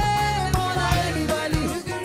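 Background music: a long held melodic note over a steady drum beat and bass.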